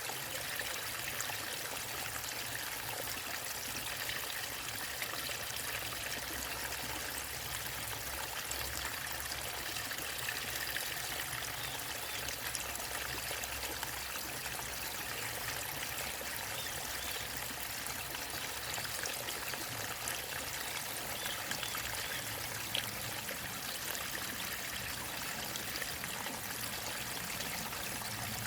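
Small waterfall and stream running steadily, a continuous rush of falling and flowing water with trickling over it.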